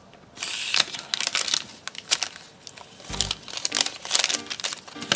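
Foil trading-card pack wrapper crinkling and crackling as it is handled, a dense run of sharp crinkles starting about half a second in.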